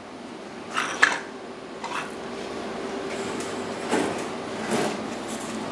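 Two sharp metal knocks about a second in, then a steady buzzing hiss of a welding arc on the roll cage's steel tubing, with a few softer knocks.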